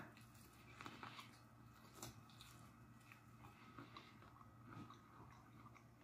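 Faint chewing of a mouthful of shredded beef birria taco, with a few soft wet mouth clicks scattered through.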